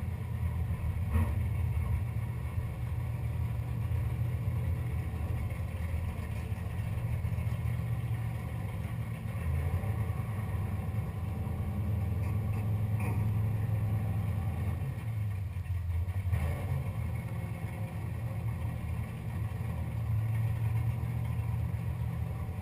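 600-cubic-inch V8 of a drag-race Camaro idling steadily with the car stationary, heard from inside the cockpit, with a few brief clicks.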